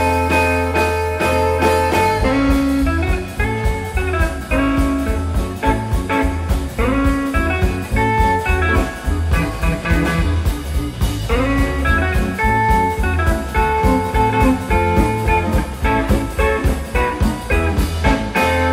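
Live blues band playing an instrumental boogie: two electric guitars over bass and a drum kit keeping a steady beat.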